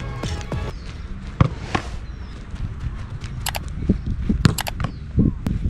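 Irregular thuds and scuffs of a goalkeeper's feet stepping and hopping on artificial turf during a cone footwork drill. Background music cuts off under a second in.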